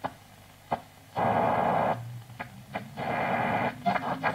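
Grundig 3160 tube radio being tuned across the dial: low hiss with a couple of sharp crackles, then loud bursts of static and broadcast fragments that come and go as the tuning passes stations.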